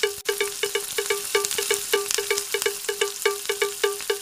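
Background music: a fast, steady run of short chiming notes, about five or six a second.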